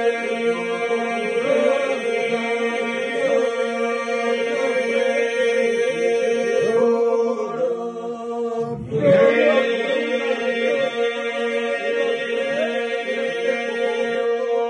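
Albanian Lab iso-polyphonic song sung by a group of men without accompaniment: the group holds a steady drone (iso) while the lead and answering voices carry the melody above it. The drone breaks off briefly about halfway through, then comes back in.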